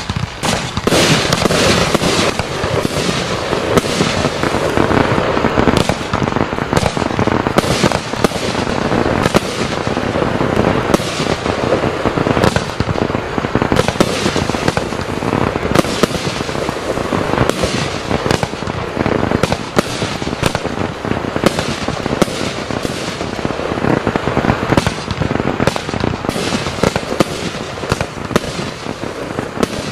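A #WATT Zorro 26-shot consumer fireworks battery (cake) firing. Its shots launch and burst in a dense, unbroken run of sharp pops and bangs.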